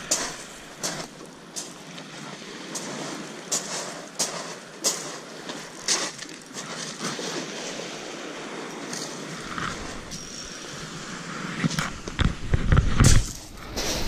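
Crunching of pebbles underfoot on a shingle beach in irregular steps, over a soft wash of small waves. Near the end a low buffeting rumble on the microphone becomes the loudest sound.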